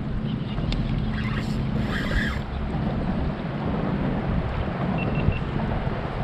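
Wind buffeting the microphone over lapping water, a steady rushing noise with a few faint clicks in the first couple of seconds.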